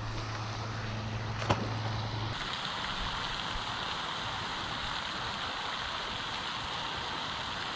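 Steady rushing hiss of water falling from a spray fountain in a pond. A low hum and a single sharp click sound in the first couple of seconds.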